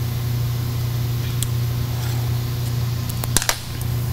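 A few sharp metallic clicks and taps, about three and a half seconds in, from the back brush and its bolt being worked off a shot blaster with an Allen wrench, over a steady low hum.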